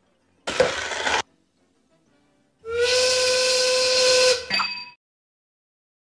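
Steam whistle blowing one steady tone with a hiss of steam for about a second and a half, the power plant's end-of-shift whistle. Before it, a short rush of noise lasting under a second, about half a second in.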